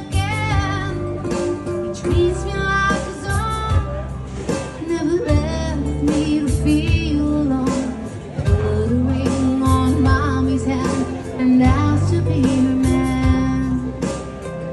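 A recorded song playing: a woman singing with guitar accompaniment.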